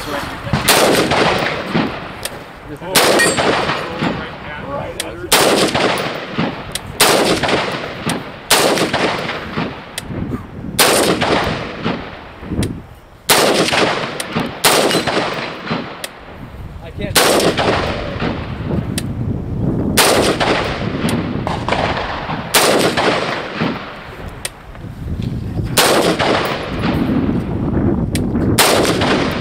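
Semi-automatic rifle firing a slow, steady string of single shots at steel targets, about one every one and a half to two seconds, each shot followed by a long echo.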